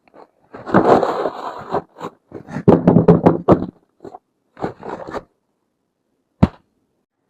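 Hands handling and opening a toy set's packaging: a rustling scrape, a quick run of taps and clicks, more short scrapes, then one sharp knock near the end.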